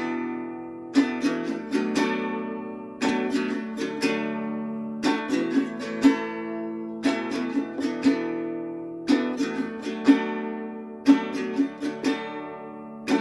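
Instrumental break in a song: an acoustic string instrument strummed in a steady rhythm, with a fresh strum pattern about every two seconds and the chords ringing between them, and no singing.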